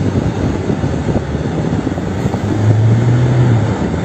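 Vehicle driving over a rough, snow-covered road, heard from inside the cab: steady engine and road noise, with a low engine hum coming up louder for about a second past the middle.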